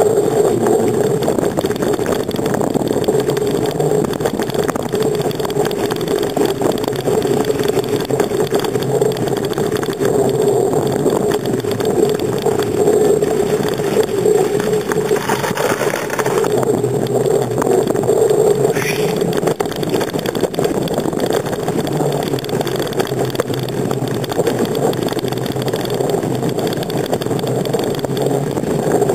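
Steady riding noise picked up by a camera mounted on a bicycle's handlebars: the wind and rolling of the ride, with a brief louder hiss just past halfway.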